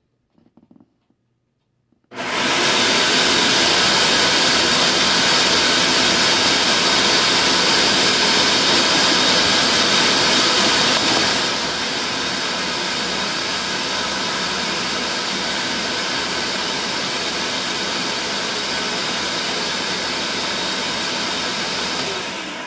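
Countertop blender grinding soaked rice in water: the motor starts with a loud, steady whir about two seconds in. About halfway through it steps down to a quieter, less shrill run, then stops near the end.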